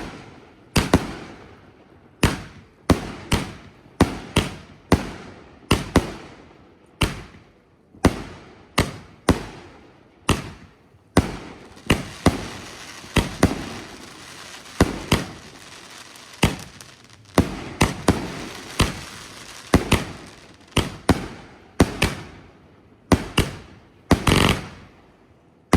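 A 66-shot King of Willow firework cake firing shot after shot, each a sharp bang with a short echoing tail, about one a second. Through the middle of the volley a steady hiss fills the gaps between the bangs.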